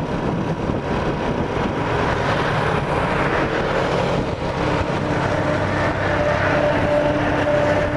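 Steady rush of wind and road noise while riding a motorbike in traffic, with a steady engine drone coming in about halfway through.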